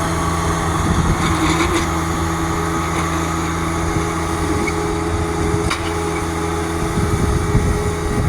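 An engine running steadily at an even speed, a constant low hum, with a couple of faint ticks about two and six seconds in.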